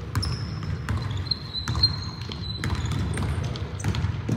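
Basketball bouncing and sneakers thudding and squeaking on a hardwood gym floor, irregular knocks echoing around a large hall, with a thin high squeal from about one to three seconds in.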